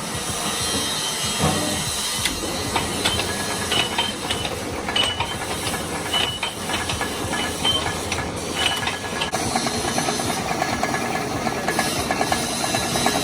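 Steady mechanical running noise with a hiss, scattered small metallic clicks and brief high pings.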